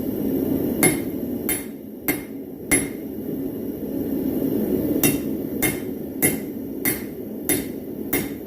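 Hand hammer striking metal on a steel anvil in a steady rhythm, about one ringing blow every 0.6 s: four blows, a pause of about two seconds, then six more. A steady rush from a single-burner propane forge runs underneath.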